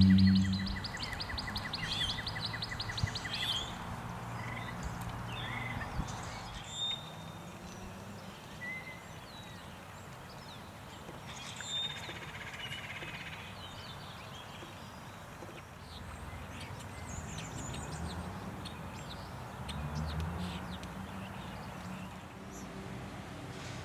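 Wild birds chirping and calling outdoors: a rapid trill of about ten notes a second for the first few seconds, then scattered short chirps over low background noise.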